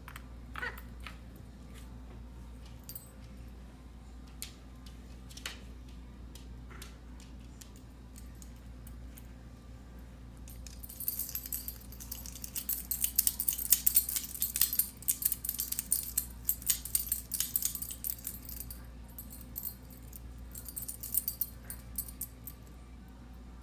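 A beagle gnawing and worrying a plush toy, its collar tags jingling in fast, high clicking runs for most of the second half, with a short second spell near the end. A few light knocks come first.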